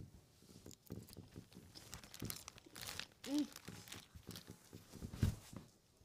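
Faint rustling and crinkling of close handling, made up of many small clicks and scrapes, with a brief hummed vocal sound about halfway through and a soft thump near the end.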